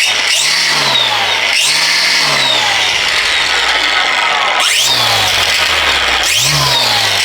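DEWALT DCST922 20V brushless string trimmer's motor and head running unloaded, spun up with the trigger about four times and easing down between squeezes.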